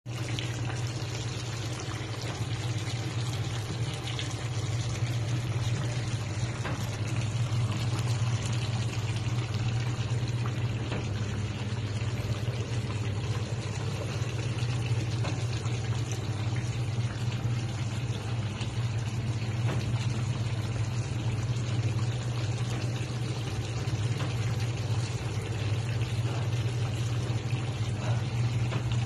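Pork adobo bubbling and sizzling steadily in a pan as it simmers in its sauce and its own rendered pork fat, over a steady low hum.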